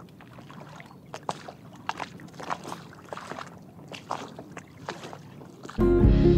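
Water slapping and splashing in small irregular hits against the hull of an inflatable dinghy towed on a line. Near the end, loud music with guitar cuts in.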